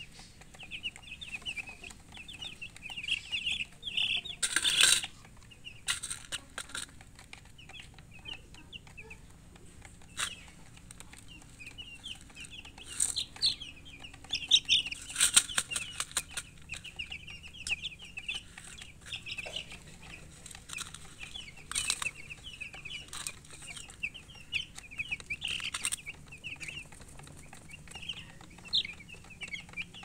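A flock of newborn chicken chicks peeping continuously, many short high chirps overlapping. A few brief louder scuffs break in, the loudest about five seconds in.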